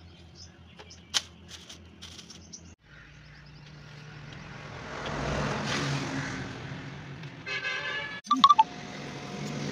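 A motor vehicle's engine swells to its loudest about halfway and eases off again, over a few faint clicks at first. A short buzzing tone sounds near the end.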